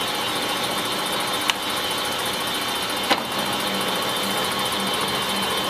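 Victor 16" x 30" metal lathe running under power, a steady mechanical hum with several held tones. Two sharp clicks, about a second and a half apart, come as the feed-range selector dial is turned.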